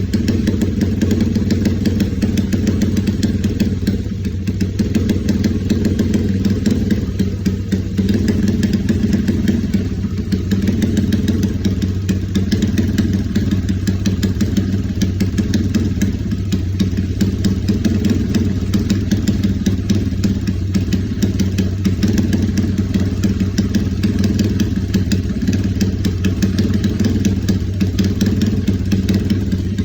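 Honda GL single-cylinder motorcycle engine idling steadily through an aftermarket Fantera-style silencer.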